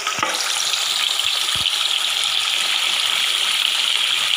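Marinated chicken pieces deep-frying in hot oil: a loud, steady sizzle of bubbling oil, with a couple of soft low knocks in the first two seconds.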